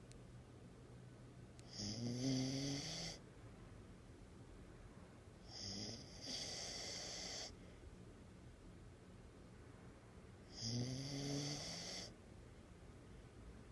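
A puppy snoring: three snores about four seconds apart, each a low buzzing tone under a breathy hiss, the middle one softer.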